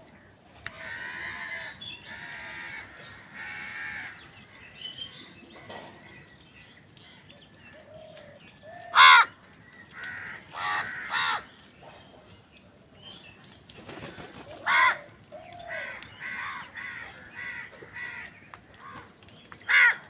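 A flock of house crows cawing: a few drawn-out caws in the first four seconds, then loud single harsh caws about nine, eleven, fifteen and twenty seconds in, with a quick run of shorter caws between them. The loudest caw comes about nine seconds in.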